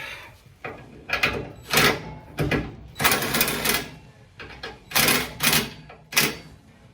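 Hand tools and steel suspension parts being worked: a series of about seven short bursts of metallic clicking and rattling, irregularly spaced, each under a second long.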